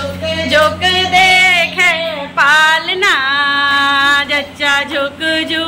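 A woman singing a traditional Hindi jachcha folk song for a newborn, in high, drawn-out phrases.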